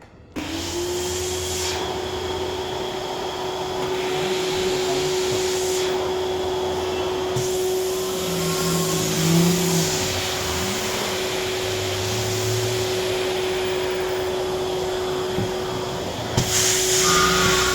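Wet and dry vacuum cleaner switched on about half a second in and running steadily: a strong airflow hiss over a steady motor whine. Near the end it grows louder.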